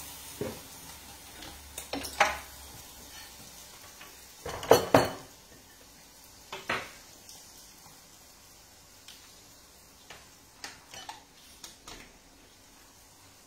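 Kitchen clatter of pots, pans and utensils: a few separate knocks and clinks, the loudest pair about five seconds in, then a scatter of small ticks near the end. A light frying sizzle fades out in the first couple of seconds.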